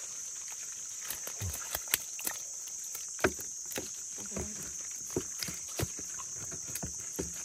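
Steady high-pitched insect drone, with scattered short clicks and knocks over it.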